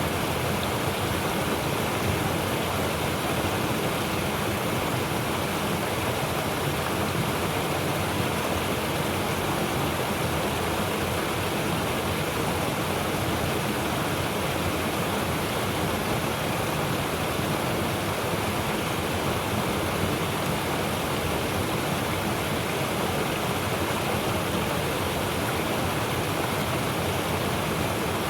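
Mountain stream rushing steadily, a full, unbroken rush of water with a deep low rumble underneath.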